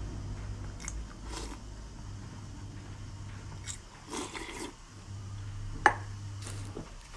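Close-miked eating sounds: a few scattered bites and chewing noises, with one sharp click a little before the end, over a steady low hum.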